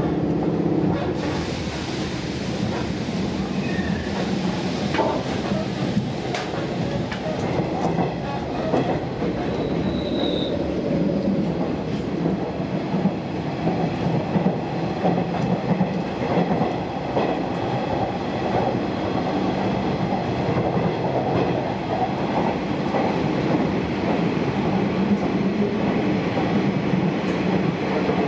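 Hanshin 8000 series electric train heard from inside the car as it pulls away from a station and runs on. A hiss starts about a second in, then the steady rumble of wheels on the rails continues, with rail-joint clicks and a brief high squeal about ten seconds in.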